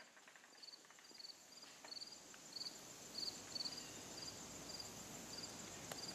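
Faint insect chirping: a short high chirp repeating about twice a second over a steady high-pitched buzz.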